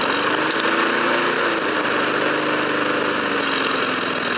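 Briggs & Stratton Sprint 375 lawnmower engine running fast and steadily, its pitch wavering slightly up and down.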